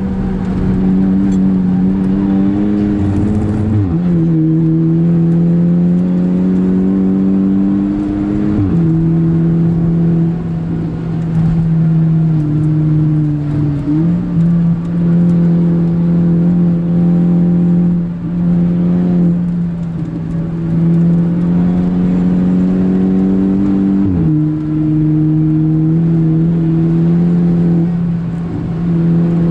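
VW Golf Mk5 GTI's turbocharged 2.0-litre four-cylinder engine heard from inside the cabin, pulling at high revs under hard acceleration. The pitch drops abruptly at upshifts a few times, with brief lifts off the throttle between them.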